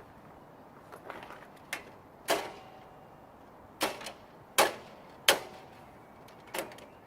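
Hammer blows on a steel U-lock freshly frozen with canned air spray: about nine sharp metallic strikes at an uneven pace, each with a short ring, the hardest three in the middle.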